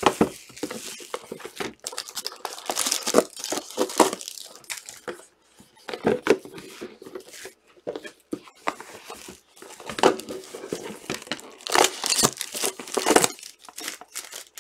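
Clear plastic shrink-wrap being torn off sealed trading-card hobby boxes and crumpled in the hand: irregular crinkling and tearing, with brief lulls about five and eight seconds in.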